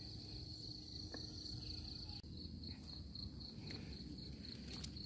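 Insects trilling: a steady high-pitched tone that breaks into an even pulsing beat about two seconds in, over a faint low hum, with a few faint clicks.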